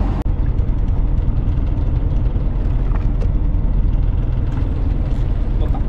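An engine running steadily, a loud low rumble with no change in pitch.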